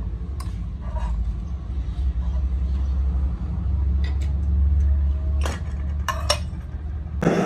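Metal parts of a casting mould clinking and knocking as they are set into place, a few separate clinks over a steady low hum. A loud rushing noise starts abruptly near the end.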